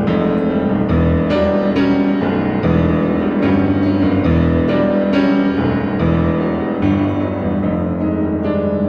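Piano music in the old silent-film accompaniment style, low bass notes alternating with chords.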